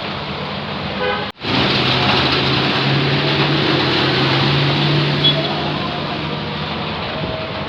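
Street traffic in the rain: a steady hiss of rain and wet tyres with vehicle engines running, and a brief high horn beep about five seconds in. The sound cuts out for an instant about a second and a half in.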